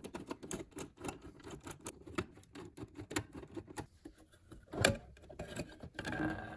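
Small irregular metallic clicks and scrapes from a screwdriver loosening screws in a microwave's sheet-metal chassis, then from wire connectors being worked off the magnetron terminal, with one sharper click a little before five seconds in.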